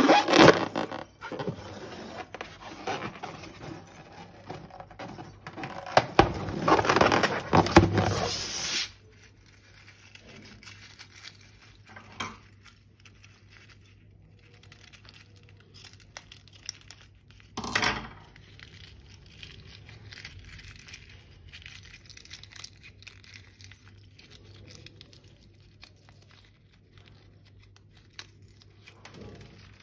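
Hands handling slime with its balloons and plastic piping bags: a busy run of small clicks and rustles for about the first nine seconds, then sparse faint clicks, with one short louder rustle about eighteen seconds in.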